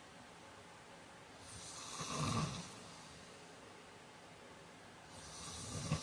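A heavy-set man snoring in his sleep: one loud snore about two seconds in, and the next building up near the end. Each snore swells from a breathy rush into a low snoring peak.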